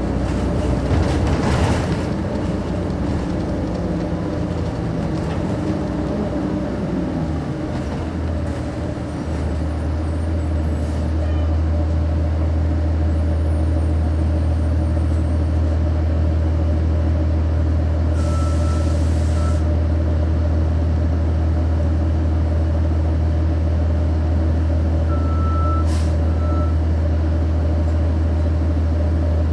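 Cummins ISC diesel engine of a 1999 Nova Bus RTS, heard from the back of the bus: its note falls as the bus slows, then it idles steadily at a stop from about nine seconds in. A short burst of air hiss from the bus's air system comes about eighteen seconds in, and short beeps sound twice, near eighteen and twenty-five seconds in.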